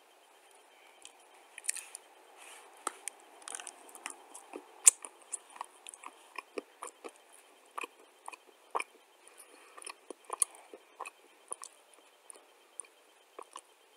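A person biting and chewing chunks of dry clay close to the microphone: a steady run of short, sharp crunches and crackles, the sharpest just before five seconds in.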